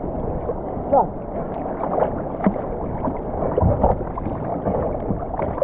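Sea water sloshing and gurgling close to the microphone, held at the waterline beside a plastic sit-on-top kayak's hull.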